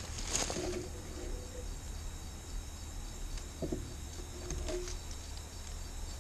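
Night crickets chirring steadily, with a few brief rustles in the brush.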